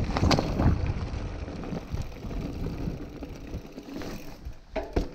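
Mountain bike rolling, with wind and rattle on the rider-mounted camera, and a sharp knock about a third of a second in and another near the end.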